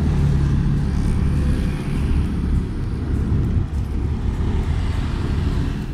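Traffic noise heard from a moving bicycle: a steady low rumble of wind on the camera microphone mixed with the engines of motorcycles riding close ahead.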